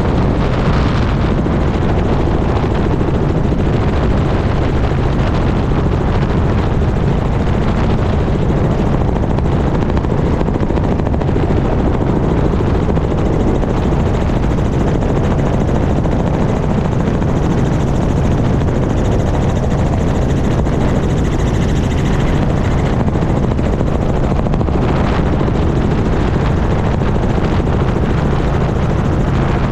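Small helicopter in flight, its rotor and engine running steadily and loud, heard up close from a camera mounted on the outside of the aircraft.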